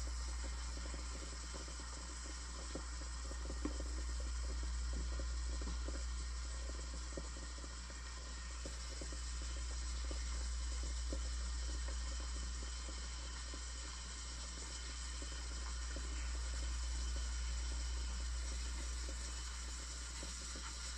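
Saachi espresso machine's steam wand hissing steadily with its tip in a stainless steel pitcher of cold full-fat milk, swirling and heating it, over a low hum.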